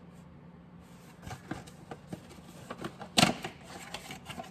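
A new distributor cap being unpacked and handled: light rustling and clicking of its packaging, with one sharper crackle about three seconds in.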